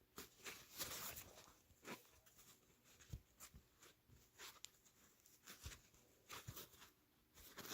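Near silence with faint, scattered clicks and rustles of hands handling small craft materials.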